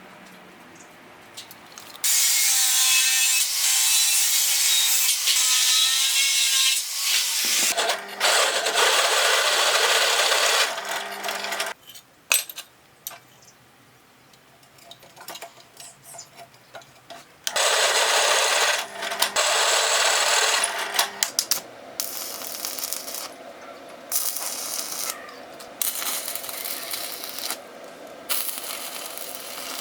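Power tool working metal in three long bursts of a few seconds each, its motor pitch wavering under load, then shorter, choppier bursts of lighter tool work near the end.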